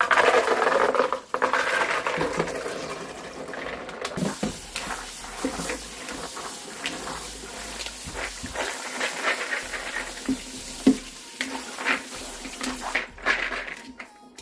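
Soaked white beans and their soaking water poured into a plastic colander in a stainless steel sink, loudest in the first few seconds, then tap water running over the beans as they are rinsed. Scattered small knocks and rattles come from the beans and the colander as it is shaken.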